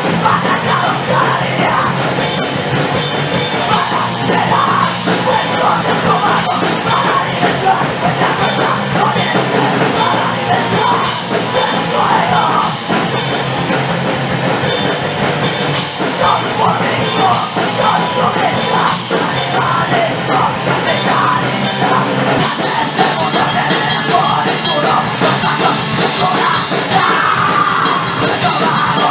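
Hardcore punk song: fast, distorted guitars and pounding drums under shouted vocals.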